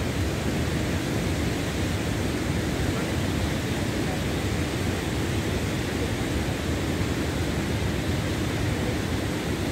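Steady, even rushing noise with no words.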